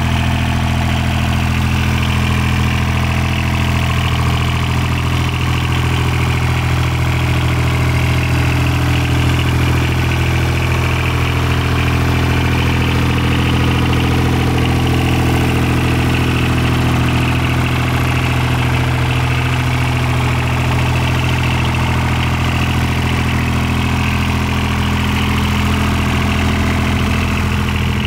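John Deere 430 lawn tractor's three-cylinder diesel engine idling steadily.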